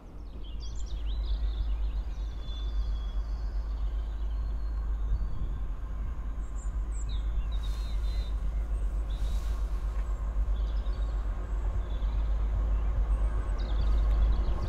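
Low rumble of wind on the microphone, with a few short bird chirps, while a TransPennine Express Class 185 diesel multiple unit approaches in the distance and the sound slowly builds.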